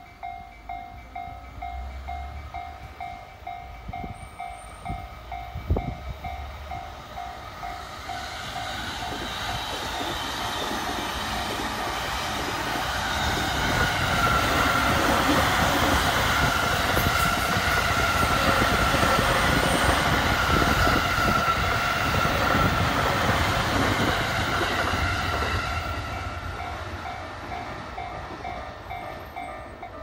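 Japanese level-crossing alarm bell ringing about twice a second, then an E231-series commuter train passing close by, building to its loudest about halfway through and fading away, with the crossing bell heard again near the end.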